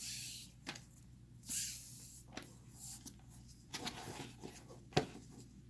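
Paracord being handled and pulled: soft rustling and brief swishes of cord sliding, with a few light clicks, the sharpest about five seconds in.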